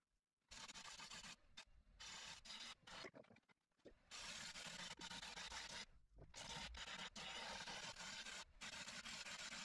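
Bowl gouge cutting the outside of a spinning wooden bowl on a lathe: a steady hiss of shavings peeling off the wood, in several passes broken by short pauses. The longest pauses come about half a second in and again just before four seconds.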